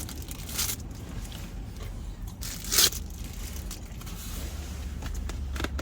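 Close-miked eating: chewing with a few short crunching or scraping noises, the loudest about three seconds in.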